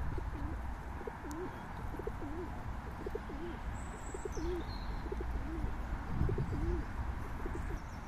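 A pigeon cooing: a steady run of about ten low, wavy coos, roughly one every three-quarters of a second. A small bird gives a single brief high chirp about four seconds in.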